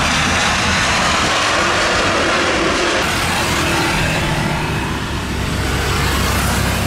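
Jet airliner noise: for about three seconds a loud roar of a Super Air Jet Airbus A320 rolling out on the runway after touchdown, then a sudden change to the lower, steady drone of a twin-engine widebody jet airliner's engines on final approach.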